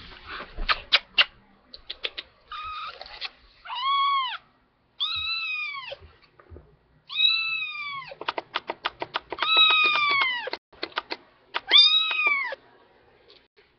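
Four-week-old kitten meowing again and again: about five loud cries of roughly a second each, each rising then falling in pitch. Between the cries comes a quick run of sharp clicks.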